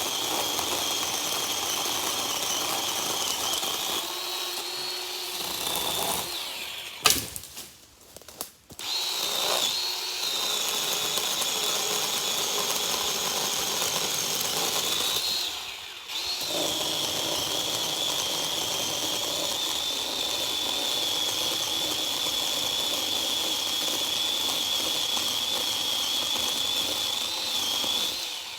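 A power tool's motor running with a steady high whine while cutting back overgrowth, stopping briefly about a third of the way in and again about halfway.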